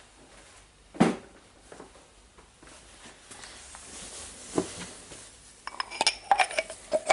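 Steel parts of a Milwaukee 1/2-inch impact wrench's hammer mechanism knocking and clinking together as they are handled and fitted during reassembly. There is a single knock about a second in and another near the middle, then a quick run of ringing metallic clinks near the end.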